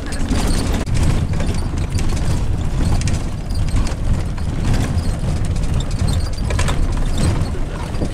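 Inside a bus driving along a gravel road: a steady low rumble from the engine and tyres, with frequent small rattles and knocks from the body.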